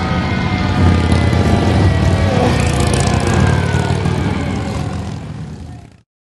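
Motorcycle engines running as the bikes ride past, a steady low rumble that fades and cuts off about six seconds in.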